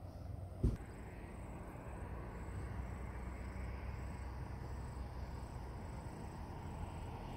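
Wind rumbling on the microphone outdoors, a steady low buffeting with one sharp thump a little under a second in.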